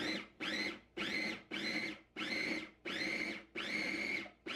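Electric food processor pulsed again and again, about two pulses a second, each a motor whine that rises and levels off before cutting out, as it grinds a thick hazelnut-and-chocolate paste. The motor is straining under the load and is overheating to the point of smelling burnt.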